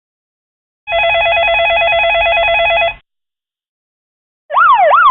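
Ringtone intro sound effects played back: an electronic telephone ring, a fast warbling trill lasting about two seconds, then after a gap of more than a second a siren effect starting near the end, wailing up and down about three times a second.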